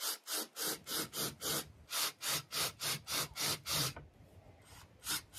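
Countersink bit in a cordless drill cutting into a pine furring strip: a rhythmic rasping scrape, about four strokes a second. It pauses for about a second near the end, then starts again.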